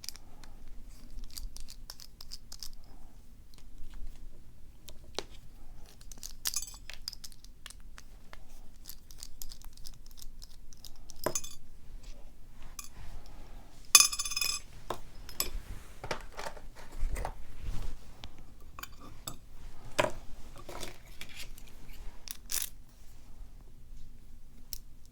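Small metal clicks and taps of a Mul-T-Lock-style pin-in-pin lock cylinder and steel tools being handled while the lock is taken apart. About fourteen seconds in there is one brighter, ringing metallic clink.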